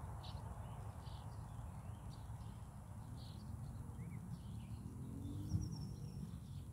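Faint outdoor ambience: scattered short bird chirps, a short rising one about four seconds in and a thin high whistle near the end, over a steady low rumble. A brief bump about five and a half seconds in.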